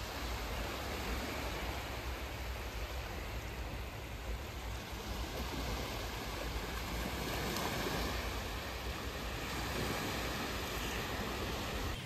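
Small sea waves washing in and out over a shallow sandy beach: a steady rush of surf that swells a little in the second half.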